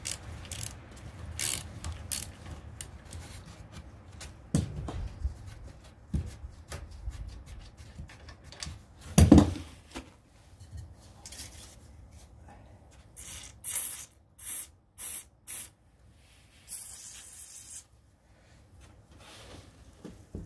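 Aerosol can of lubricant spray squirted in four short bursts and then one longer one, blowing lube into freshly threaded engine bolt holes to clear out metal filings. Before that come scattered clicks and scrapes of hand tools on metal, with one loud knock about nine seconds in.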